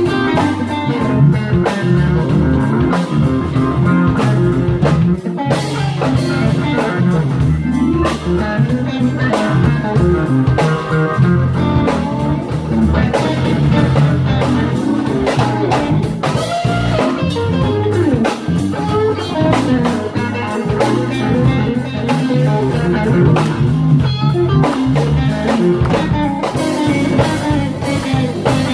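Live band playing blues: electric guitar over keyboard and drums.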